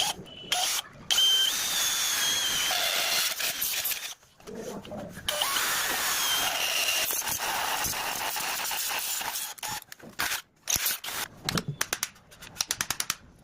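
Power cutting machine's motor running with a steady high whine, stopping briefly about four seconds in and again near ten seconds; a rapid string of short clicks follows near the end.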